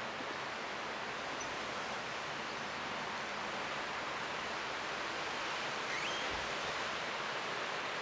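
Wind rustling the leaves of a tree: a steady, even hiss of moving foliage. A faint short rising chirp comes about six seconds in.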